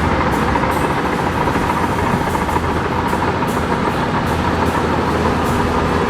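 Bulldozer's diesel engine running steadily while its steel tracks clatter a few times a second.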